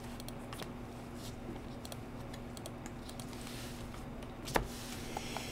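Trading cards being handled: faint light clicks and a brief sliding rustle as the cards are flipped, with one sharper click about four and a half seconds in, over a faint steady hum.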